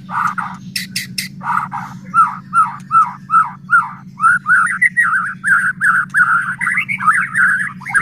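White-rumped shama (murai batu) calling loudly. A few harsh rasping strokes come near the start, then a run of repeated down-slurred notes about three a second, which breaks into a fast, continuous chattering song over the second half. A steady low hum runs underneath.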